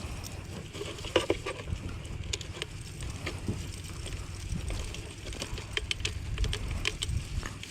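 Small irregular splashes and drips of water against a paddleboard on a river, over a steady low rumble of wind on the microphone.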